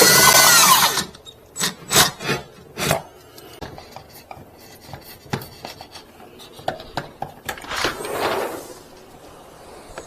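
Power drill with a spade bit boring through the wall, its motor whine rising and falling under load, stopping about a second in. Then a few sharp knocks and fainter clicks and rubbing.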